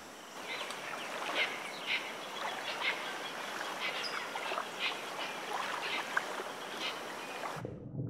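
Natural outdoor ambience: an even hiss with many short bird calls scattered through it, cutting off abruptly shortly before the end.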